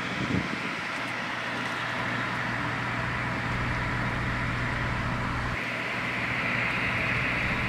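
Steady outdoor background noise: a hiss with a low hum under it, like a vehicle running nearby, with a couple of faint knocks at the start; it turns brighter and fuller about five and a half seconds in.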